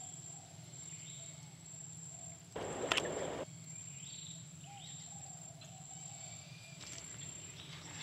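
Faint outdoor ambience in wet woodland with a few soft bird calls, broken about two and a half seconds in by a brief noisy rush lasting under a second.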